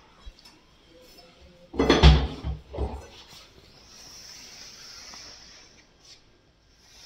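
Aluminium-framed kitchen cabinet doors being pulled open, with a cluster of knocks and rattles about two seconds in. Then a faint steady hiss and a single small click near the end.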